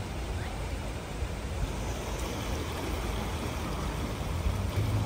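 Fast-flowing floodwater of a swollen river rushing as a steady noise, with a low rumble underneath.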